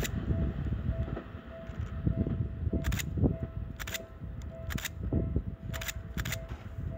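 Distant railway level-crossing warning bell ringing, a single tone on and off in a steady repeating beat, over the low rumble of a Seibu commuter train pulling away, which fades after the first second. From about three seconds in, sharp clicks come about once a second.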